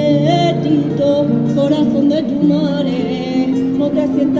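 Group of women singing with acoustic guitar accompaniment.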